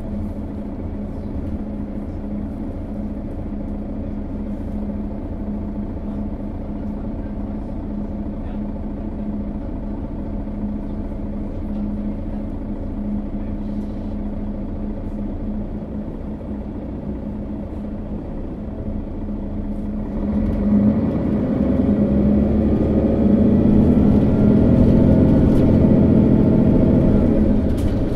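Setra S415 NF city bus's diesel engine idling steadily, then about twenty seconds in it gets louder as the bus pulls away, the engine note rising through its Voith automatic gearbox and easing off near the end.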